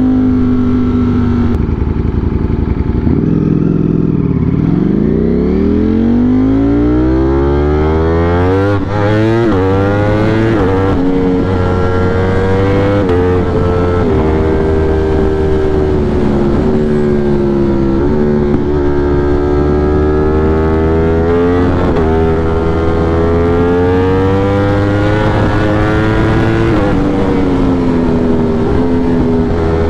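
Ducati V4 sport motorcycle engine pulling hard from low revs, its note climbing steeply for about five seconds and stepping through quick upshifts. It then settles into cruising in fifth gear, with the revs rising and easing as the throttle is rolled on and off.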